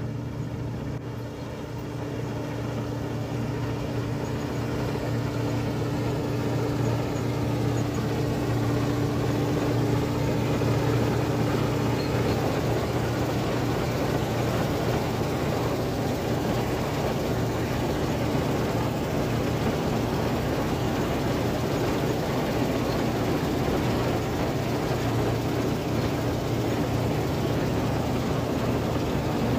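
Claas Dominator 48S combine harvester running steadily, growing louder over the first several seconds. A steady whine from the machine stops about twelve seconds in while the engine hum carries on.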